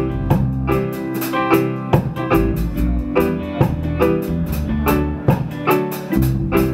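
Live band playing an instrumental passage of a reggae song: electric guitar and Roland JV-90 keyboard chords over drum kit and bass, in a steady repeating rhythm.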